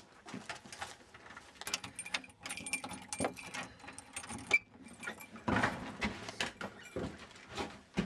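Irregular clattering: a run of short clicks, rattles and knocks, with a louder cluster of knocks about five and a half seconds in.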